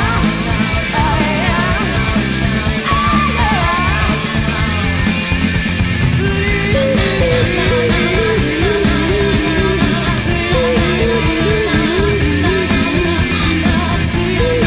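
Loud, distorted punk-style rock music with a band playing. About six seconds in, a short melodic figure starts repeating over it.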